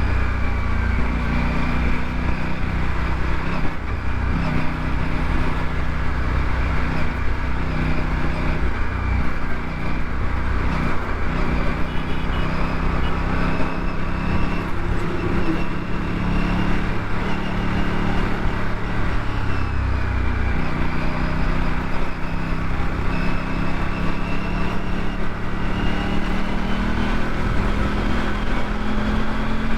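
Aprilia RS 457's 457 cc parallel-twin engine running under way, its pitch stepping up and down with throttle and gear changes and rising steadily near the end, over a steady low rush of noise.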